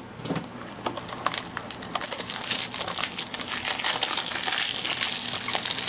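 Clear plastic shrink wrap being peeled off a Blu-ray case: scattered faint ticks at first, then steady crinkling of the plastic from about two seconds in.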